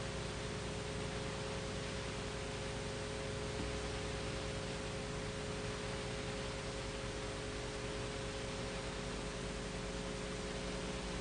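Steady hiss with a faint constant electrical hum: the background noise of an old videotape recording.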